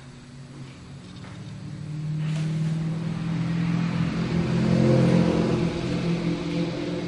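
A vehicle engine hum that grows louder over a few seconds, peaks about five seconds in, then eases off.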